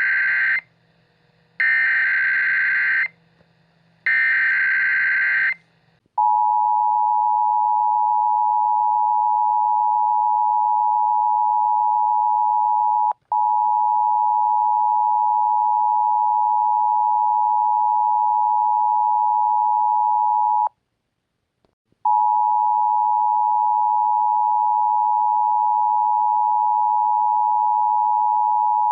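Emergency Alert System tones: three short, screechy bursts of the digital SAME header, then about six seconds in the steady two-tone EAS attention signal. The attention signal drops out for an instant about thirteen seconds in and stops for over a second near twenty-one seconds before resuming.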